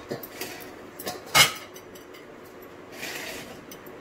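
Pieces of a dry-fruit and sugar patti being broken apart and handled in a stainless steel bowl, with a sharp clink against the steel about a second and a half in and a short rustle near the end.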